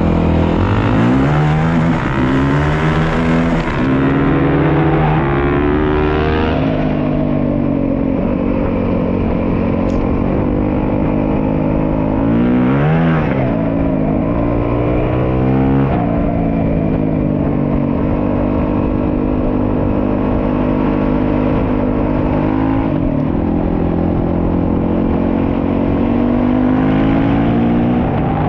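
Single-cylinder four-stroke dual-sport motorcycle engine under way, its pitch climbing and dropping again and again with throttle and gear changes over the first half, then holding steadier at a cruise.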